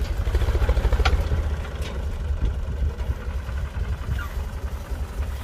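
Ford 4600 tractor engine running steadily with a low, fast pulsing beat, joined by two sharp clicks in the first two seconds.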